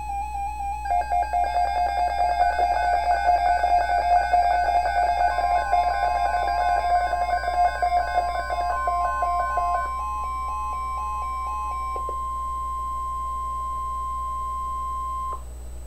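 Electronic music with a stepping synth melody plays for about the first ten seconds. Under it, a steady single tone near 1 kHz begins: the NOAA Weather Radio 1050 Hz alert tone that sounds before a watch or warning is read. The tone then sounds alone for about five seconds and cuts off sharply near the end.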